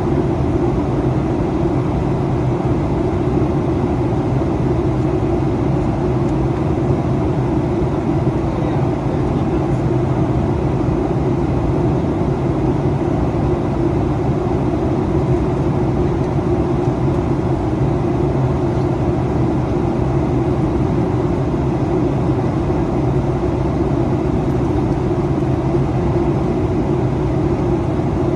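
Steady cabin noise inside a Boeing 737-800 in flight on descent: a loud, even roar of airflow and CFM56-7B engines with a low hum underneath, unchanging throughout.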